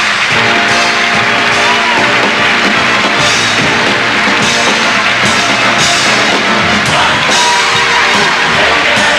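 Brassy Broadway show music with a steady drum beat, with crowd noise mixed in.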